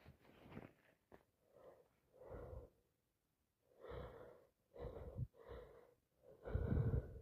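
A woman with a heavy cold breathing in short, noisy gasps and sniffs, about seven in the space of a few seconds, the last one the longest and loudest.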